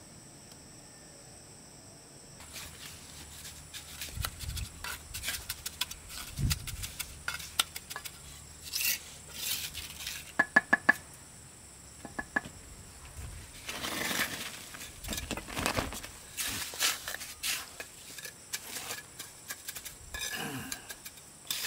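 Irregular clinks, taps and scrapes of hard objects, some with a short metallic ring. They start a couple of seconds in, with a quick run of ringing clinks about halfway through.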